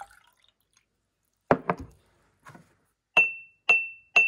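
Glass jar set down on a table with two dull knocks, then a wooden mallet strikes glass jars three times, about half a second apart. Each strike leaves a clear ringing ping of the same high pitch; the last is on a jar partly filled with water.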